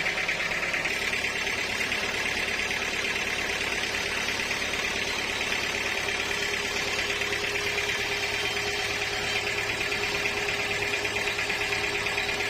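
Sawmill machinery running steadily: a constant mechanical hum with a fine, rapid chatter and a steady mid-pitched tone, unchanging throughout.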